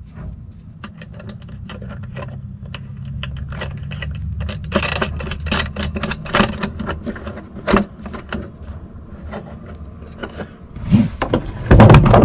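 Small metal clicks and scrapes as a nut and washer are spun by hand onto a stainless bolt through a wooden rail, over a steady low hum. A few loud knocks come near the end.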